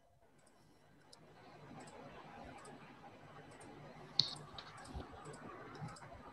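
Faint scattered clicks over low background hiss on an open video-call microphone, with one sharper click about four seconds in.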